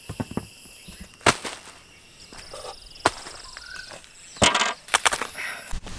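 Jackfruit bulbs being tossed onto a metal tray, landing with several irregular sharp taps. The loudest come about a second in and at about four and a half seconds.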